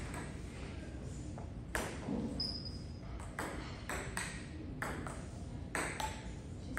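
Table tennis rally: a ping-pong ball clicking off paddles and a Stiga table in an irregular run of sharp hits, the first just under two seconds in.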